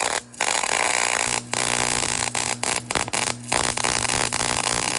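Forney MIG welder laying a weld on thin steel: a steady, loud arc sizzle over a low steady hum, broken by a few brief gaps where the arc stops and restarts.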